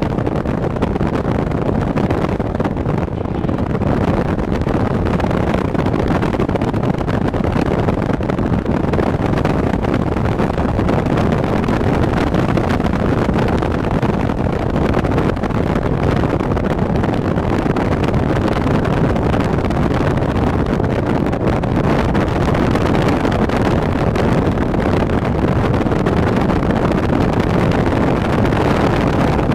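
Steady road and engine noise from a car driving along, heard from inside the cabin, with some wind on the microphone.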